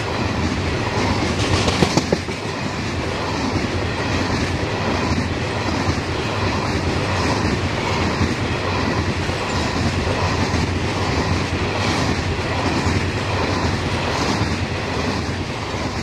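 Grain hopper wagons of a freight train rolling past close by, with a steady rumble of wheels on rail and a repeating clickety-clack as the wheels cross rail joints. A brief louder clatter comes just under two seconds in.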